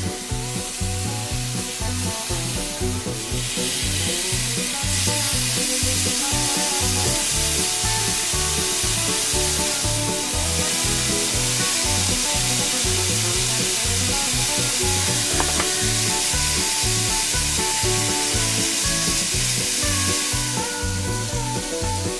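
Pork neck steaks, later joined by smoked duck slices, sizzling steadily in a hot frying pan. The sizzle grows louder about three seconds in. Background music with a steady beat plays underneath.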